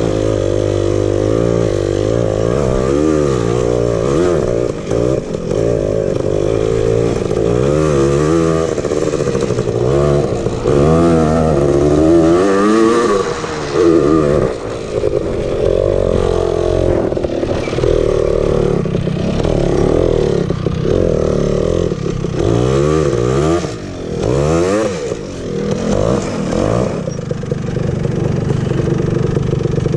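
Honda TRX250R's two-stroke single-cylinder engine revving up and down over and over under throttle, its pitch climbing and dropping many times, with steadier running near the end.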